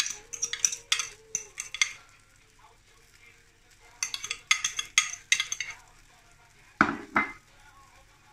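A metal fork clinking and scraping against a glass bowl in two quick runs of taps, as minced meat is scooped out of the bowl. Two duller knocks follow near the end.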